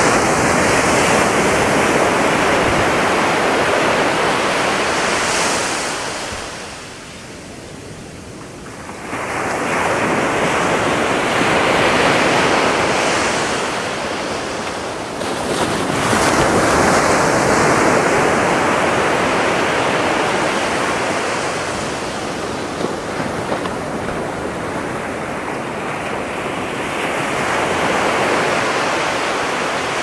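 Atlantic Ocean surf breaking and washing up a sandy beach in repeated swells, each wave rising and then fading. There is a quieter spell about seven seconds in before the next wave comes in.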